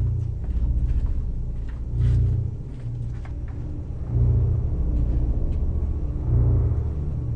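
Low, ominous rumbling drone from a horror soundtrack, swelling in slow pulses about every two seconds, with a few faint clicks above it.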